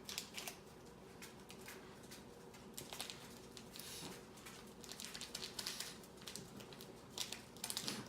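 Faint crinkling and light pattering from a ramen seasoning packet as the powder is shaken out into the bowl of noodles.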